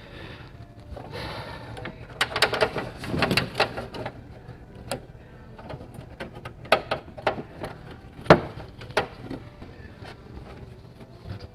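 Irregular metallic clanks and knocks of tools and parts being worked loose on an old car: a quick flurry about two to four seconds in, then a few single strikes, the loudest a sharp knock about eight seconds in.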